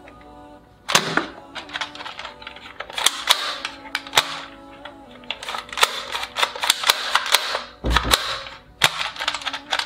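Yellow toy foam-dart blaster being handled and triggered: repeated bursts of rapid clicks and sharp shot-like cracks starting about a second in, with a low thump near the eight-second mark. Faint background music runs underneath.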